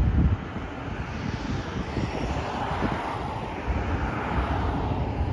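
Outdoor city traffic noise on a busy road bridge: a broad engine rush that swells over a few seconds and fades near the end, over a low rumble.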